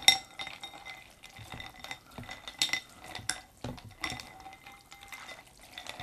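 Wooden chopsticks stirring and pulling apart cold noodles in broth in a ceramic bowl, with sharp clinks of the chopsticks against the bowl that ring briefly. The loudest clink comes right at the start, and several more follow a few seconds in, over soft sloshing of the broth.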